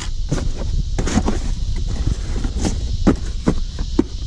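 A cardboard card storage box and binders being shifted and set down: a string of short knocks, taps and scrapes, over a steady low rumble and a high hiss.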